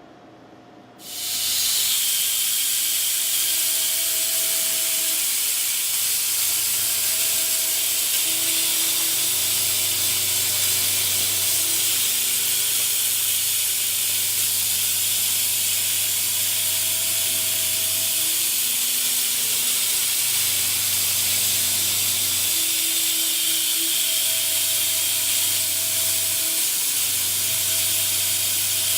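A loud, steady machine hiss starts abruptly about a second in and keeps going, with a fainter low hum that comes and goes beneath it.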